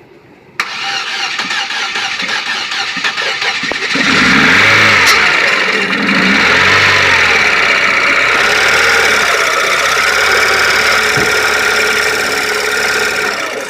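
2005 Chevrolet Aveo's four-cylinder engine being cranked by the starter, then catching about four seconds in and running roughly, its speed rising and falling. This is a crank-no-start engine firing at last with oil that had got into its cylinders, and it struggles to stay running.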